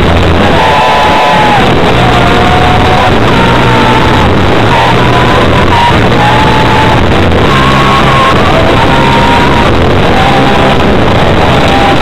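Rock band playing loud, with electric guitar over bass and drums, without a break.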